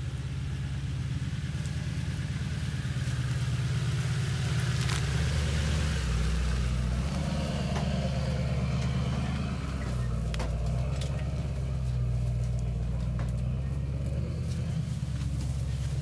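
Motor vehicle engine running steadily with a low rumble, with a few short clicks and knocks over it.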